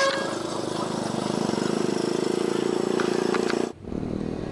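A small motorcycle engine idling steadily with a fast, even pulse, stopping abruptly near the end.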